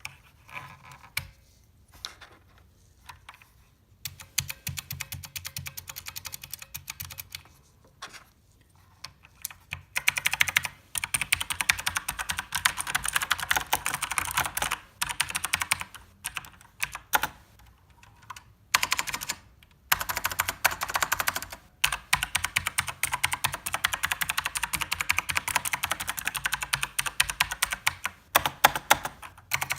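Typing on a mechanical keyboard: a few single key presses, then fast runs of key clicks in several bursts with short pauses between them.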